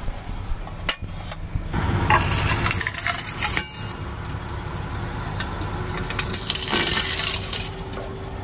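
Enamelled steel pot lid being crushed flat under a slowly rolling train wheel on the rail: a few sharp clinks about a second in, then dense metallic clinking and crunching from about two seconds in as the wheel presses the lid into the railhead.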